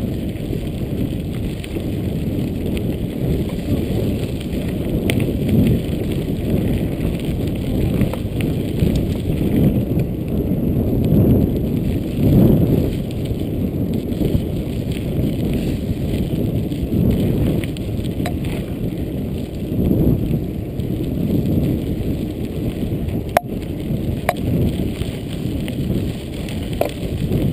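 Mountain bike rolling over a dirt and gravel track, heard from a camera on the rider: a steady low rumble of tyres on the track and wind, swelling now and then, with a few light clicks and rattles from the bike and one sharp click about 23 seconds in.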